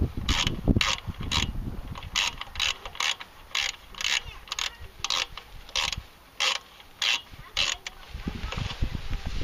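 Hand ratchet tightening throttle body bolts, its pawl clicking in short quick bursts on each back-swing, about two bursts a second, with a brief pause about six seconds in.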